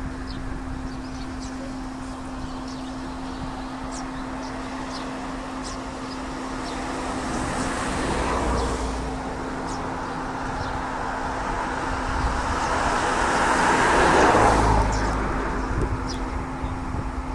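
Road traffic: two vehicles pass, one swelling and fading about eight seconds in and a louder one about fourteen seconds in, over a steady low hum.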